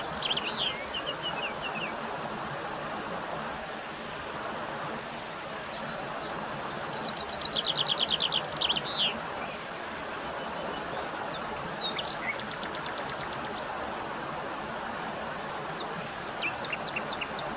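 Birds calling in short series of quick repeated chirps, the loudest a rapid trill in the middle, over a steady rushing of waterfall water.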